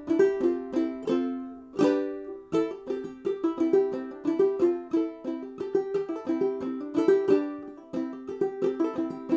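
Duke 10 banjo ukulele played clawhammer style: a steady rhythm of plucked notes that die away quickly, with hammer-ons and pull-offs over C, F and G chords, and one full brush across the strings about two seconds in.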